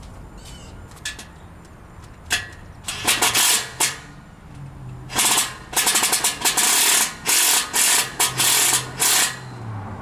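Power impact driver hammering in short on-off bursts as it runs a nut onto an eye bolt through a wooden gate post: one burst about three seconds in, then a string of bursts from about five to nine seconds.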